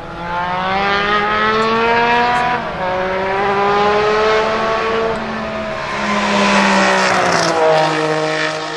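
Singer DLS Turbo's straight-piped 700 hp twin-turbo 3.8-litre flat-six under hard acceleration, its pitch climbing through the gears with upshifts about two and a half and five seconds in. It is loudest as it passes close near the end, then the note drops as it pulls away.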